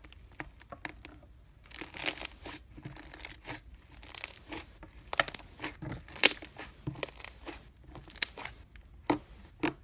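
Thick slime pressed by hand through badminton racket strings: dense sticky crackling and popping, with sharper pops now and then. It starts about two seconds in, after a few faint clicks.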